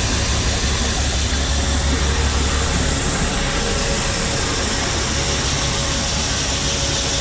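Grain-handling machinery running steadily while shelled corn pours from a hopper-bottom trailer's gate into a grain pit: a low hum under an even hiss, the hum easing slightly about three seconds in.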